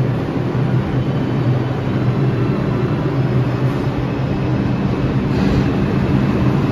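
New York City subway 2 train of R142 cars pulling out of the station: a steady low motor hum over the rumble of wheels on the rails, getting a little louder toward the end as the cars pass.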